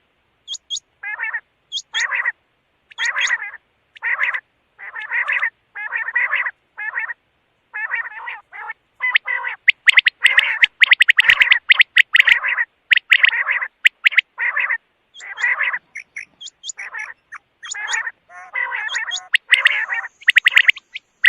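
Quail calling over and over, roughly one short call a second, with thin high squeaks in between and a denser run of calls around the middle.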